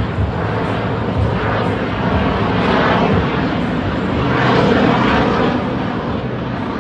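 Fighter jet flying past in a climb: a loud, steady jet-engine rush that swells twice and is loudest about five seconds in.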